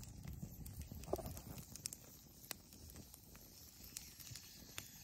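Small wood campfire crackling faintly, with irregular sharp pops about once a second over a low rumble.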